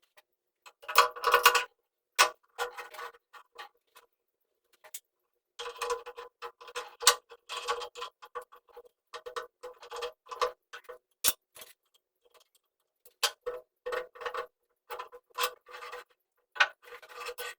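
Metal parts of a cast-iron drill press clicking and clinking as they are handled and fitted together during reassembly, in irregular runs of sharp ticks and short rattles with a slight metallic ring.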